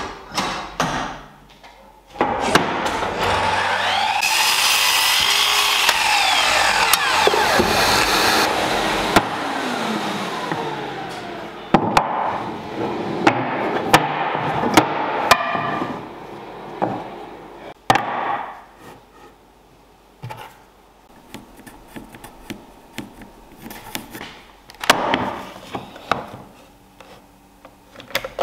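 A table saw runs and cuts oak for about fourteen seconds, its pitch rising and then falling away. After that come a series of light wooden knocks as the cut oak blanks are set down and moved on the workbench.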